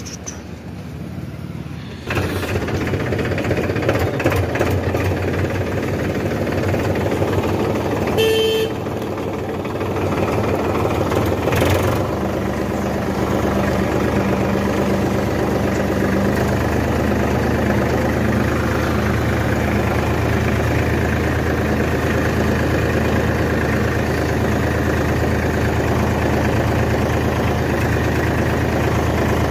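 Tractor's diesel engine running, which gets suddenly louder about two seconds in and then runs steadily as the tractor pulls away. A short horn toot of about half a second comes about eight seconds in.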